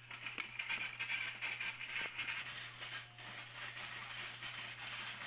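Rustling and small clicks and knocks of ingredients being handled and added into a glass blender jar, over a steady low electrical hum.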